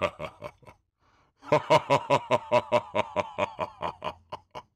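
A man laughing: a short chuckle, then a long run of evenly spaced 'ha' pulses, about five a second, that thins out and fades near the end.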